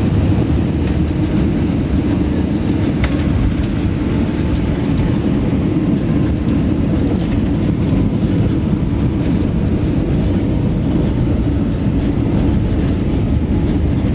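Steady low rumble inside an airliner's cabin as it rolls along the runway after landing: the wheels on the runway and the jet engines.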